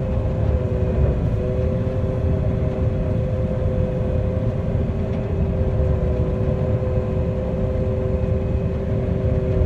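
John Deere 9400 combine running steadily: a deep engine rumble with a constant two-note whine over it.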